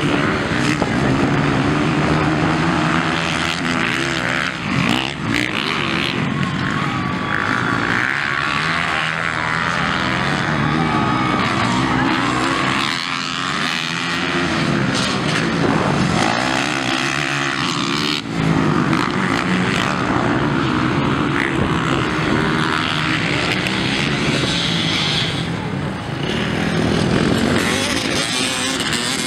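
Several motocross dirt bikes racing, their engines revving hard and falling back again and again as the riders accelerate, shift and brake through the corners and jumps.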